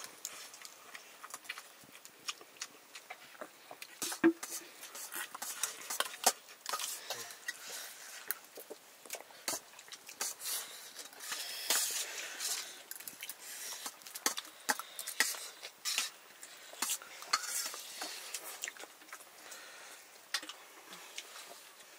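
Metal utensils clinking and scraping against metal dishes: many scattered sharp clicks, irregular, over a faint steady hiss.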